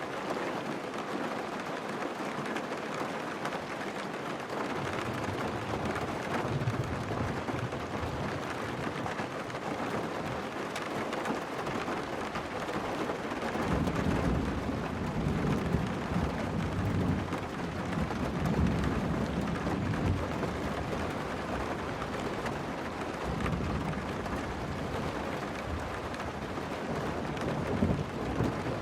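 Steady heavy rain falling on a car, with long low rumbles of thunder rolling in about five seconds in, again through the middle for several seconds, and once more near the end.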